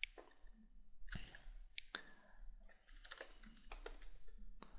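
Faint, irregular clicks of a computer mouse, about ten, some in quick succession.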